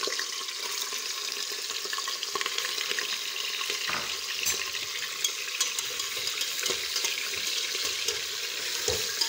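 Beef pieces sizzling and crackling steadily as they fry in hot oil in an aluminium pressure cooker, with a couple of knocks as more meat and a ladle go into the pot, about four seconds in and near the end.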